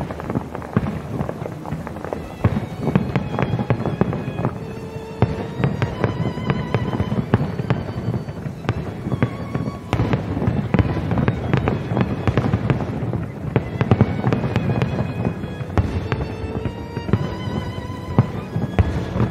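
Aerial firework shells bursting in a rapid barrage, one crack and boom after another, with music playing underneath.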